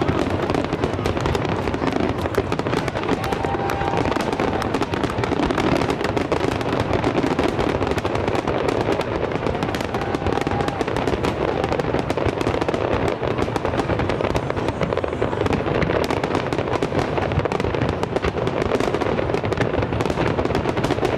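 Fireworks display finale: aerial shells bursting in an unbroken barrage, the bangs coming too fast to count.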